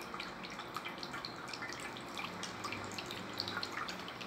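Faint water dripping irregularly, many small plinks scattered through, over a low steady hum.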